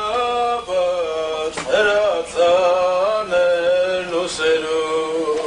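A man's voice singing a slow, chant-like melody, holding long notes that slide between pitches.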